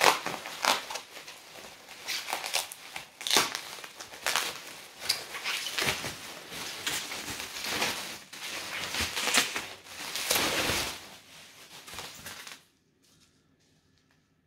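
Plastic bubble wrap being handled and pulled off a package, crinkling and crackling irregularly. It stops suddenly near the end.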